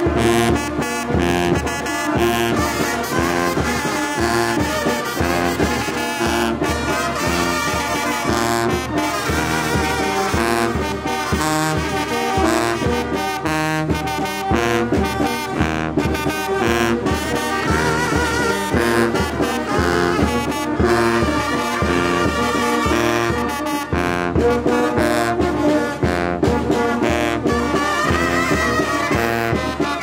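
Youth brass band playing a jarabe from Guerrero: a sousaphone bass line under baritone horns, alto horns, trumpet and trombone, at a steady beat.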